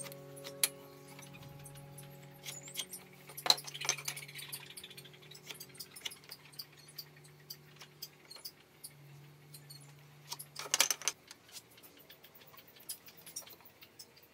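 Light metallic clicks and taps of a steel ruler and combination square being handled and set down on wood while a pencil marks, with a quick run of clinks about eleven seconds in.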